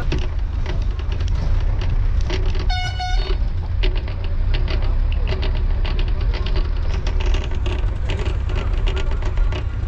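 Low rumble and clatter of a waiting bus with its engine running, with a short horn blast about three seconds in.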